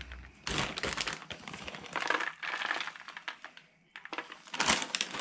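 Crinkling and rustling of a plastic packet of grated cheese as handfuls are pulled out and sprinkled over baked potatoes, in several short bursts.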